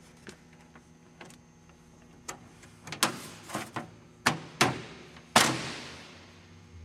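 Interior door trim panel being pressed and smacked onto a Ford pickup's steel door, its plastic retaining clips snapping into their holes: a run of sharp knocks and snaps, a few light ones and then about half a dozen harder ones, the last and loudest about five seconds in with a short ring after it.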